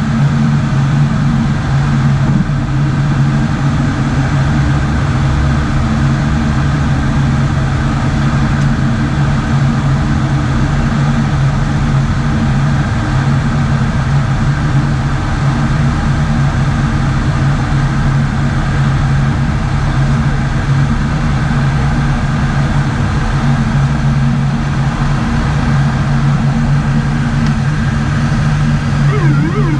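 Steady drone of the ATR 72-600's twin Pratt & Whitney PW127M turboprops and six-bladed propellers, heard from inside the cockpit on approach, with a strong low propeller hum under a wash of airflow noise.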